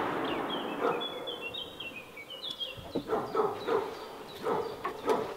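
Hunting hound barking at a wild boar it is working, in a run of quick barks from about halfway through. Small birds chirp in the first half.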